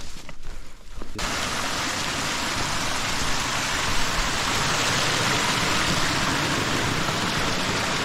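Small mountain stream splashing and rushing over mossy boulders in little cascades, a steady hiss of water that comes in abruptly about a second in.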